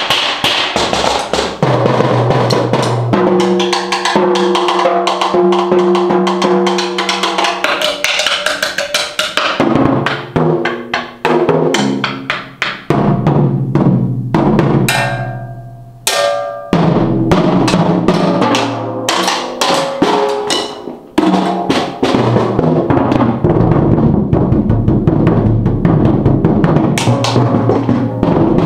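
Drum kit played with sticks in a fast, loose solo: dense, rapid drum hits, broken by a few short gaps where the last hit rings out, the longest about halfway through.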